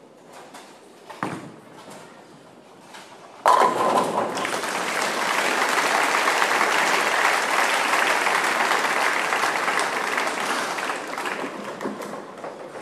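Bowling ball crashing into the pins for a strike, a sudden loud clatter about three and a half seconds in. The crowd's applause follows at once and slowly dies down near the end.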